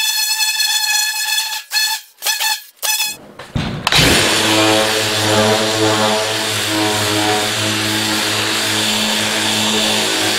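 Short, broken high tones for the first three seconds or so. Then, about four seconds in, a cordless angle grinder spins up and runs steadily with a hissing grind, abrading rust off the sheet-metal roof panel.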